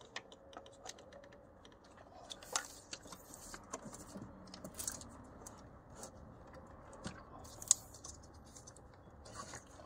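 Quiet, scattered clicks and scrapes of hand work on engine parts as they are worked loose, with one sharper click about three-quarters of the way in.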